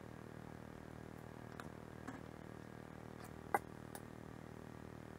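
A few light clicks and taps of small parts being handled on a rotary-axis housing, the sharpest a little past halfway, over a faint steady hum.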